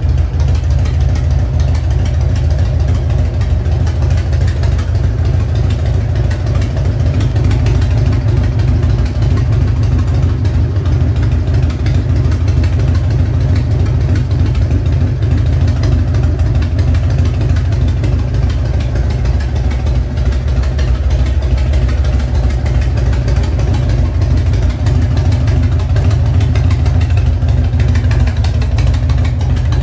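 Harley-Davidson Evolution V-twin of a 1994 Heritage Softail Nostalgia, carbureted, idling steadily through Samson exhaust pipes.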